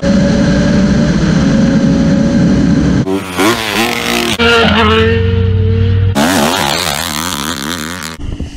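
A sport motorcycle's engine running steadily at road speed. About three seconds in it changes abruptly to dirt bike engines revving up and down in quick swells, with one brief held high rev.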